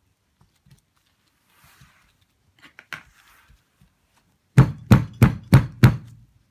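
Loaded wooden soap loaf mould knocked down on the table five times in quick succession, about three knocks a second, with the thick soap batter inside. A few faint scrapes and clicks come first.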